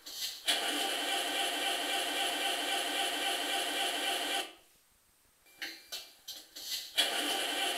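Servonaut sound module in a Tamiya Scania RC truck playing a Scania V8 diesel engine through its small speaker: a few short cranking bursts, then a steady idle with no deep bass. The engine sound cuts off abruptly about halfway through. After a second of quiet, another run of short bursts brings the idle back near the end.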